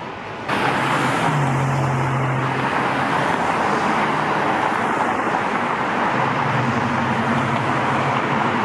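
Road traffic close by: a steady rush of tyre and engine noise that starts suddenly about half a second in, with a low engine hum coming through twice.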